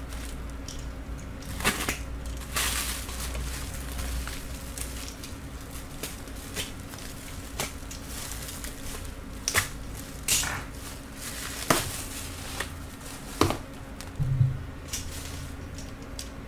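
Plastic shipping wrap on a parcel rustling and crinkling as it is opened, with irregular sharp clicks and snaps, several of them louder in the second half.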